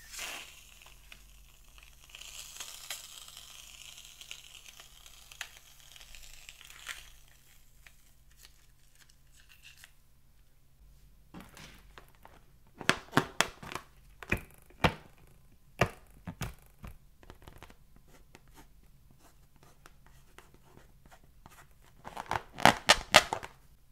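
Hands gripping and rubbing a latex balloon, giving clusters of sharp crackles and clicks, with a faint hiss in the first several seconds.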